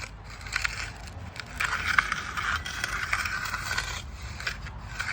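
Hand finishing tool scraping over wet, gritty concrete along the edges of a freshly poured slab, in a series of strokes that are loudest and most continuous from about a second and a half in.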